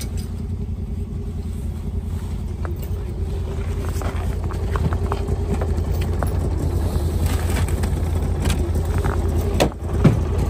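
An engine idling steadily, with scattered knocks and clunks of gear being packed and a storage box being handled.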